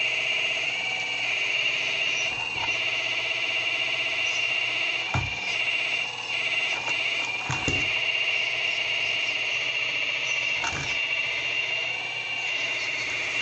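RC excavator running with a steady high-pitched whine from its drive, broken by three dull knocks as it works.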